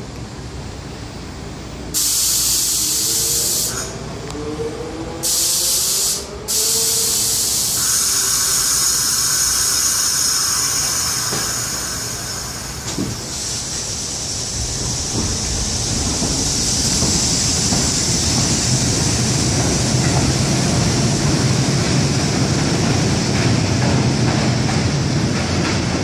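R68 subway train leaving a station. Two loud bursts of compressed-air hiss come about two and five seconds in, followed by a few seconds of steady electrical whine. From about halfway through, a broad rumble of wheels on rails grows louder as the train pulls away.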